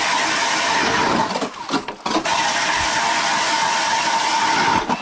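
StrikeMaster Lithium 40V battery-powered ice auger drilling through lake ice, its motor running with a steady whine. It drops off briefly about one and a half seconds in, picks up again, and stops just before the end.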